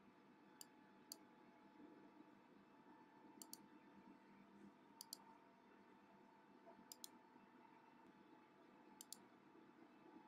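Faint, sharp clicks of a computer mouse button: two single clicks, then four quick pairs about two seconds apart, over a faint steady hum.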